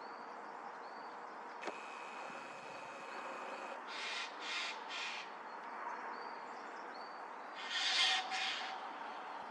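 Crows cawing: three short harsh caws about half a second apart, then two louder caws near the end. Before them comes a click and a faint steady high tone lasting about two seconds.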